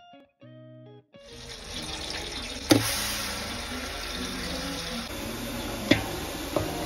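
A few plucked guitar notes at the start, then onion paste frying in hot oil in a pot, a steady sizzle. A wooden spatula knocks sharply against the pot twice.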